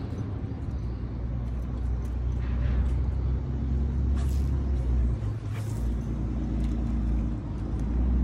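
Steady low rumble of road traffic, swelling and easing as vehicles pass, with a couple of brief hisses around the middle.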